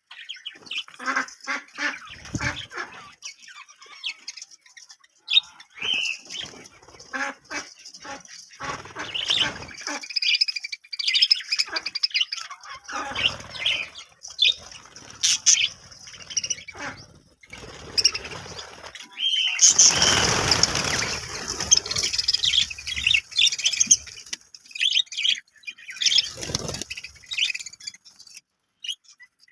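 Budgerigars chirping and chattering in many short high calls and squawks, with a louder rustling flurry for a few seconds about twenty seconds in.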